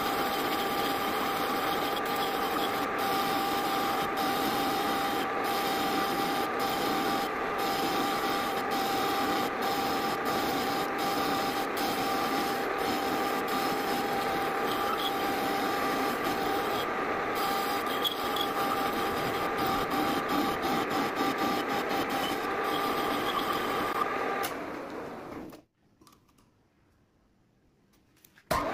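Metal lathe running while a cutting tool turns down a metal bar: a steady machining noise with a steady whine. About 25 seconds in the noise dies away to near silence, then starts again abruptly just before the end.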